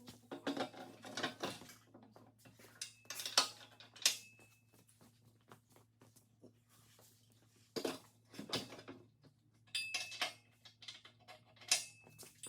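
Metal parts clanking and clinking as they are handled, in several clusters, a few strikes ringing briefly; the loudest come about three and four seconds in and near the end. A steady low hum runs underneath.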